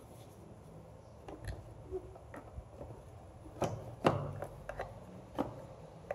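Light plastic clicks and knocks as a 1993 Acura Legend's blower motor, with its squirrel-cage fan wheels, is handled and seated into its plastic blower housing. The knocks are scattered and irregular, the loudest a little over halfway through.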